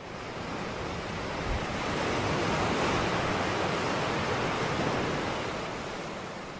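Ocean surf: a steady rush of waves breaking, fading in, swelling in the middle and easing off near the end.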